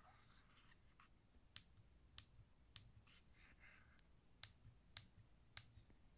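Keys of an HP-15C Limited Edition calculator pressed one at a time, giving six faint, crisp clicks in two runs of three, a little over half a second apart. The keyboard has a pronounced click and a slightly hollow sound.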